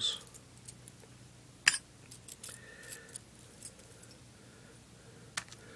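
Thin flat metal lock-picking tools clinking against each other as they are shifted about in a hand: scattered light metallic clicks and chinks, the sharpest about one and a half seconds in.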